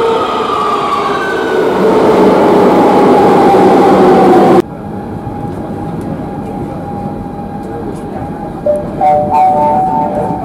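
Madrid Metro train slowing, its motor whine falling in pitch over loud rail noise. About four and a half seconds in the sound cuts off abruptly to a quieter steady hum with one held tone, and near the end a few short tones sound.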